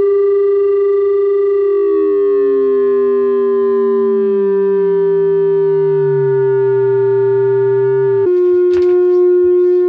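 FM-synthesized synthesizer tone: a steady pitch carrying many non-harmonic overtones. About two seconds in, the overtones begin to glide, some sliding slowly down and others up. About eight seconds in it switches abruptly to a slightly lower, plainer steady tone.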